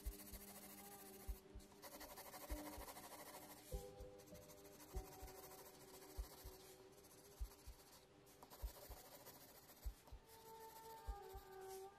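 Mechanical pencil scratching on sketchbook paper in short shading strokes, faint, over soft background music.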